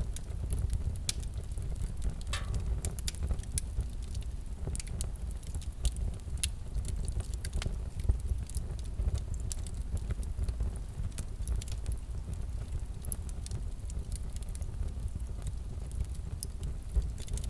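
Crackling wood fire: a steady low rumble with many irregular pops and snaps, and a short falling whistle about two seconds in.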